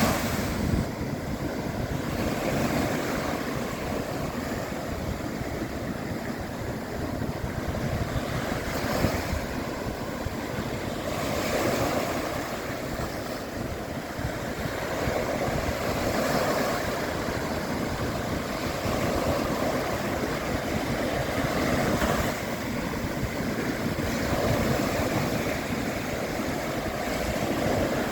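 Sea waves breaking and washing on a shore, a continuous rushing surf that swells and eases every few seconds, with some wind noise on the microphone.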